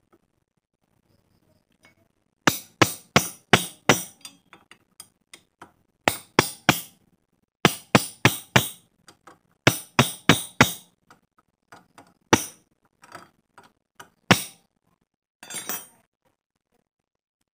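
Sharp metal-on-metal strikes on a steel rod set against the motorcycle clutch's centre nut: several bursts of four or five quick blows, then single blows, and a short metallic rattle near the end.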